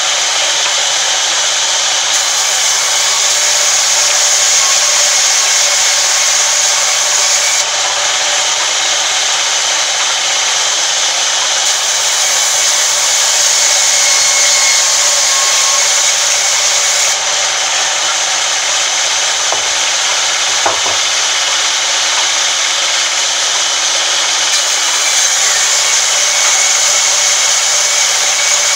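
Sawmill band saw ripping lengthwise through a long wooden plank, a loud steady sawing noise throughout.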